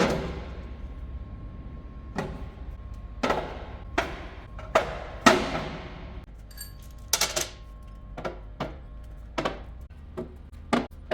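Heavy metal pieces knocking and clanking one after another, about a dozen times, each knock ringing briefly: steel press tooling being set down on metal shelves.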